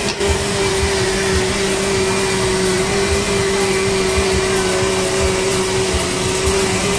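Electric countertop blender running at high speed, blending a coconut smoothie. The motor comes on just at the start and runs with a steady whine.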